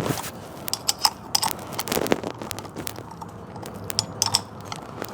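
Irregular clicks and light knocks of hand-tightening a cordless angle grinder's disc: the spanner working the flange nut while the spindle lock button is held.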